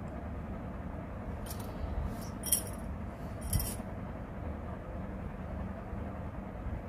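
Light jingling and clinking of small hard objects in three short bursts, about one and a half, two and a half and three and a half seconds in, over a steady low background rumble.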